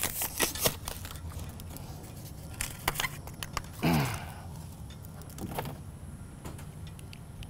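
Shipping packaging being pulled off a new bicycle by hand: rustling with scattered clicks and snaps, thickest in the first second, and a brief downward-sliding squeak about four seconds in.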